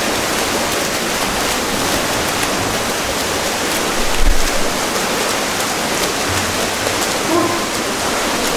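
Water splashing and churning as water polo players swim and tussle in the pool, a steady wash of noise with a low thump about four seconds in.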